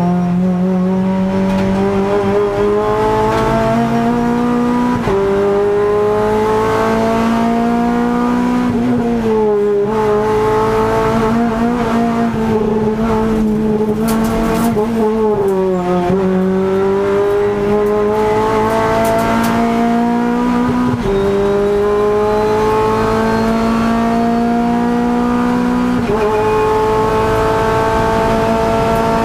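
Renault Clio Cup race car's 2.0-litre four-cylinder engine at full throttle, heard from inside the stripped cockpit. Its pitch climbs steadily through each gear and drops sharply at several quick upshifts. Twice the pitch dips and wavers briefly before climbing again.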